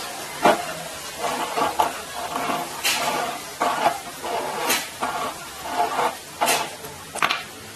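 Irregular clicks and clatter of hard objects being handled, with a handful of sharp knocks.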